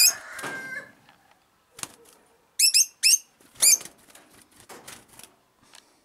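Rosy-faced lovebirds calling with short, shrill, squeaky chirps: one right at the start, then three loud calls in quick succession about halfway through, with faint clicks between.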